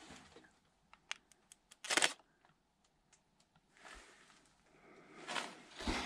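Handling noise close to the microphone: a few faint clicks, then a short loud rustle about two seconds in. After a quiet stretch, soft rustling returns and ends in a low thump.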